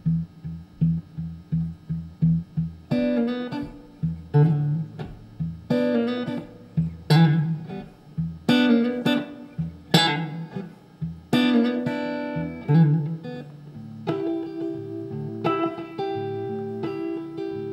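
Solo Telecaster-style electric guitar played through an amplifier, an instrumental song intro. It opens with a quick run of short low notes, then full chords struck about every second and a half with single notes between, and settles on a held, ringing chord near the end.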